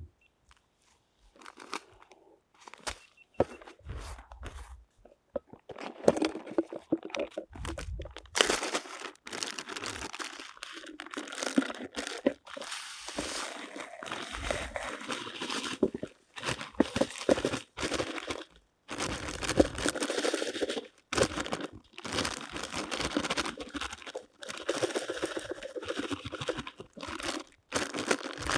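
Plastic zip-lock bag of soaked couscous crinkling as it is handled and worked down into a plastic food pot. A few soft knocks at first, then from about six seconds in long runs of crackling broken by short pauses.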